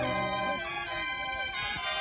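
Brass band music: the wind instruments hold sustained notes while the drums pause, quieter than the full band around it.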